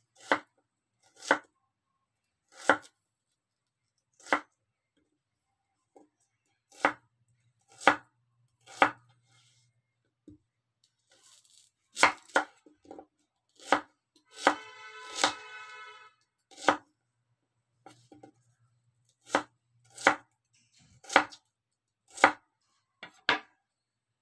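Chef's knife cutting a red onion down onto a wooden cutting board: slow, unevenly spaced knocks, about one a second, with a short pitched squeak just past the middle.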